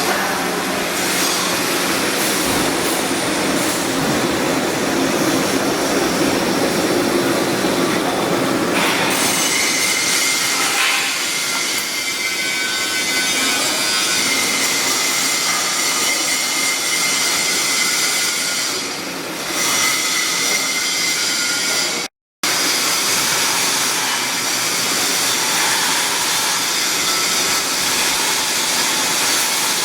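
Arc welding on a 6-inch carbon steel pipe: a steady, dense crackle that keeps going with little change and cuts out for a split second about two-thirds of the way through.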